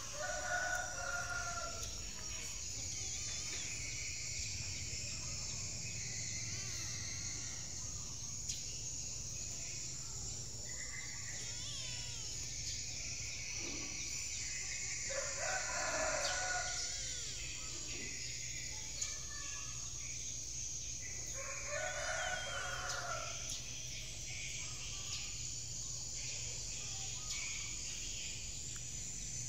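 A rooster crowing three times: once at the start, once about halfway through and once about three-quarters through, each call lasting about two seconds. A steady high-pitched insect drone runs underneath.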